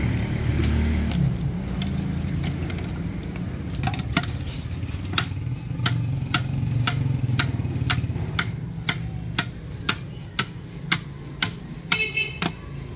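A steady low engine-like rumble, with a run of sharp, evenly spaced taps about twice a second starting about four seconds in and stopping near the end.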